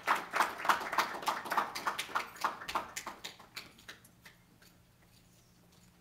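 Audience applauding, a small crowd's clapping that thins out and dies away about four seconds in.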